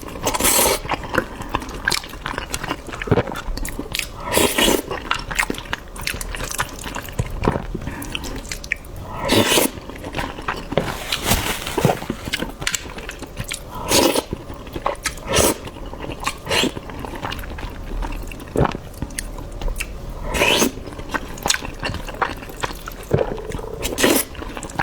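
Close-miked eating: wet chewing and mouth sounds from eating shrimp and soft scrambled egg, with short sharp clicks throughout and a louder bite or smack every four to five seconds.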